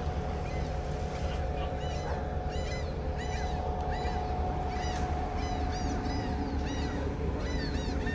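Many short, arching, meow-like animal calls repeated one after another, over the steady low drone of an idling boat engine.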